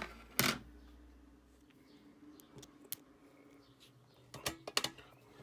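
Scattered light clicks and taps from handling the 2014 Mac mini's case parts as the bottom cover is fitted back on: a pair near the start, a single click around three seconds, and a quick run of clicks about four and a half seconds in.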